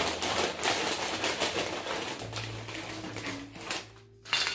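Crinkly plastic chip bag being handled and rummaged through as a hand digs out a handful of chips: a dense run of rapid crackles that thins out near the end, then one short crackle.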